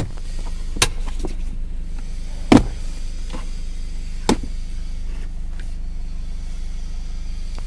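Four sharp clicks at uneven intervals from a Kia Sonet's dashboard AC airflow-direction controls as the air direction is changed, over a steady low hum in the car's cabin. The direction actuator is dusty and dry, which makes it noisy.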